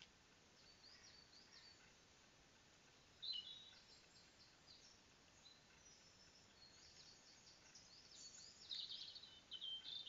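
Faint songbird song: a run of high chirps and whistles, some gliding in pitch, loudest about three seconds in and over the last second or so.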